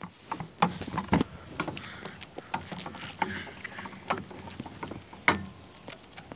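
Footsteps and irregular clicks and knocks on a playground climbing structure's perforated metal deck, with one sharper knock about five seconds in.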